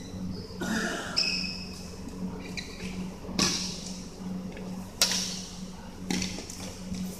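Badminton rally on an indoor court: a few sharp racket hits on the shuttlecock, the sharpest about five seconds in, with short high squeaks of sneakers on the court floor, over a steady low hum.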